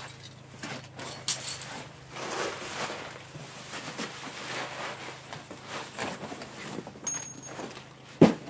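Plastic bags and packing material rustling and crinkling as a cardboard shipping box is unpacked, with scattered light clicks. One louder thump comes near the end.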